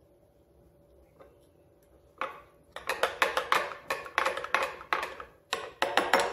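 Metal spoon stirring chia seeds in water inside a glass jar, clinking quickly and unevenly against the glass, about four clinks a second, starting about two seconds in.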